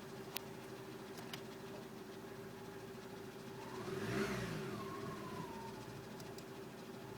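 2006 Citroën C2 VTS 1.6-litre four-cylinder petrol engine idling steadily with a tapping noise that the owner calls horrible and cannot explain. About four seconds in, a louder engine sound swells and fades, rising and then falling in pitch.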